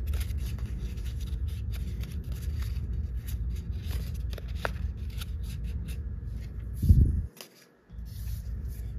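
65 lb pink cardstock being folded and creased by hand along its score lines: small papery crackles and rustles. A dull thump comes about seven seconds in, followed by a moment of near silence.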